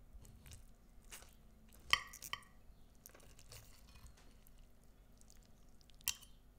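Knife and fork cutting through a baked stuffed round zucchini: soft slicing and squishing of the filling and flesh, with sharp clinks of the cutlery against the plate about two seconds in and again near the end.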